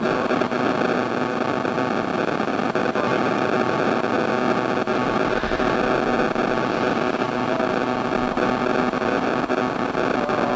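Outboard race boat engines running together at a distance before the start, heard as a steady, noisy drone.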